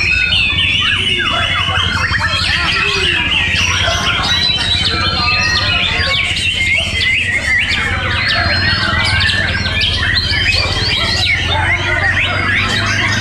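Several caged white-rumped shamas (murai batu) in full song at once, a dense, unbroken tangle of fast whistles, trills and chirps, with a steady low hum underneath.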